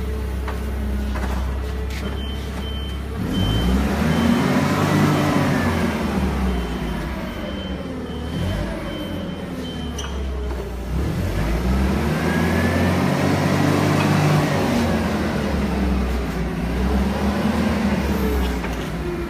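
Forklift engine idling, then revving up and down twice as it works the lift. A high, evenly pulsed beeping alarm sounds through the first half.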